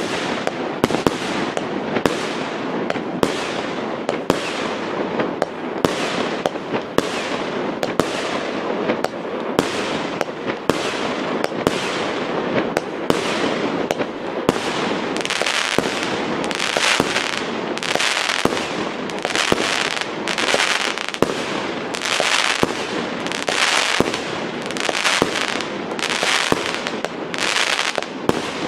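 Fireworks display at close range: dense crackling and sharp bangs throughout. About halfway in, a regular run of hissing bursts sets in, roughly one a second.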